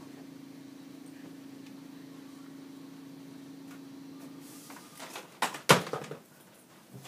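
A steady low hum that stops about four and a half seconds in, then a few sharp knocks from equipment being handled, the loudest two close together about five and a half seconds in.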